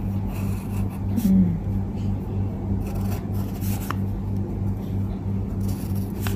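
Pencil scratching on paper as short strokes are written, over a steady low hum.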